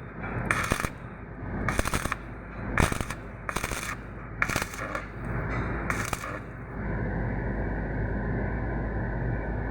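Arc welding: a run of short crackling bursts about a second apart, then a steady sizzling arc from about seven seconds in, over a constant low hum.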